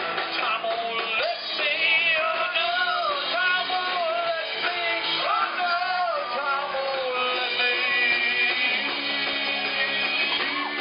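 Live rock band playing through a PA: a singer's melody over guitar, giving way to the instruments near the end.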